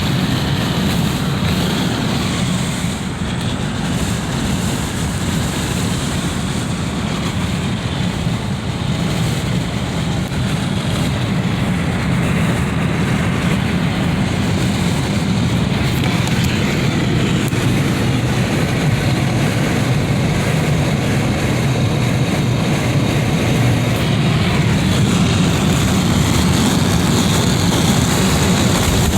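Wind blowing in through a window: a steady, deep rush of air that holds at a near-even level.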